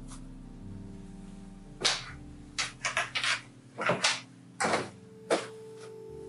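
A dark jacket being handled and laid flat on a table: a run of sharp fabric flaps and rustles, about six in three and a half seconds, starting about two seconds in.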